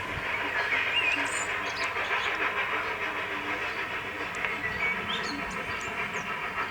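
A train running steadily, with short high chirps over it.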